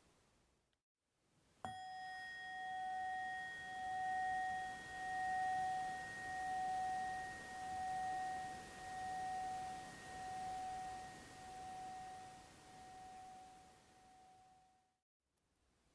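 A metal chime is struck once about two seconds in and rings with one clear tone that pulses in slow waves as it fades, dying away after about thirteen seconds.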